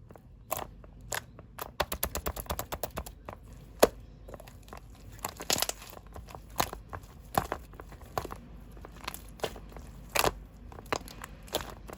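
Something crinkly being handled by hand, giving dense, irregular crackling and crunching with a few sharper snaps.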